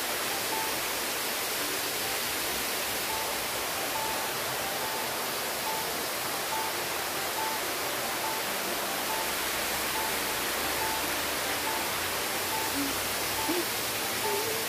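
Water pouring down a stepped stone spillway into a pool: a steady, even rush of falling water. A faint short note repeats about twice a second over it.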